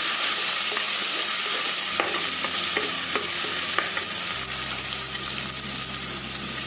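Shallots and ginger frying in oil in a clay pot, sizzling steadily while a wooden spoon stirs and scrapes through them, with a few light taps of the spoon. They are being sautéed until their raw smell goes.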